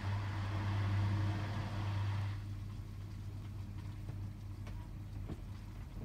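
Hotpoint WMFUG 942 washing machine mid-cycle on a Cotton 60 programme: a steady low hum with a rush of water that stops about two and a half seconds in, after which the hum carries on more quietly.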